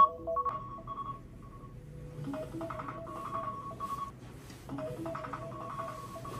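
Smartphone clock alarm playing a soft melodic tone pattern, repeating in short phrases.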